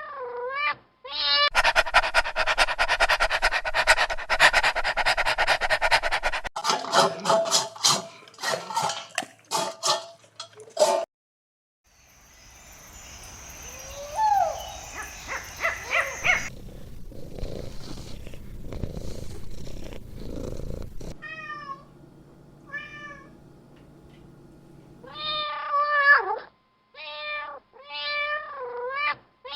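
Domestic cat sounds in a string of short pieces: a few meows that bend up and down in pitch at the start and again near the end. Between them come several seconds of rapid dense pulsing and some noisier stretches.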